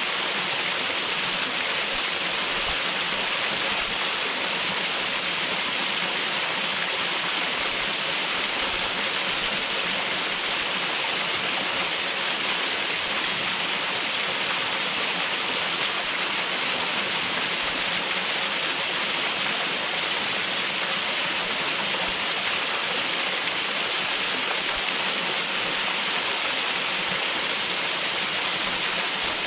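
Small waterfall, the upper portion of Tip Toe Falls, with water pouring and splashing in a steady, even rush that does not change.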